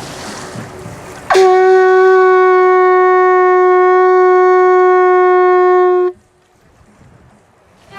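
A single long horn-like note held at one steady pitch for about five seconds, very loud, starting and cutting off abruptly. Before it, a second of even rushing noise.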